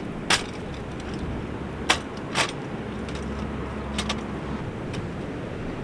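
Folding metal step stool being opened out and set down on stones: four sharp metal clacks spread over about four seconds as the frame unfolds and locks, over steady background noise.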